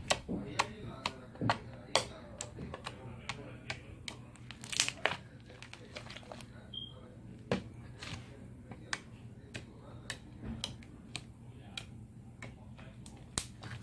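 Slime being poked and pressed with fingers, giving irregular sticky clicks and pops.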